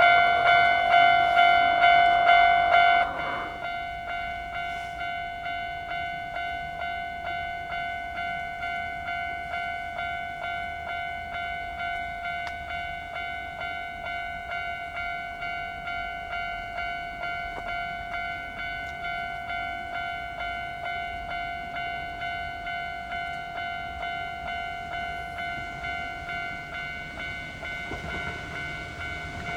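Japanese railway level-crossing warning bell ringing a steady, evenly repeated electronic ding. It is louder for the first three seconds, then drops to a quieter level and keeps ringing.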